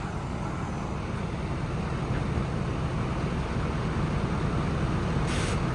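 Steady low rumble and hiss inside the Dominator 3 storm-chasing vehicle, slowly growing louder, with a short high hiss near the end.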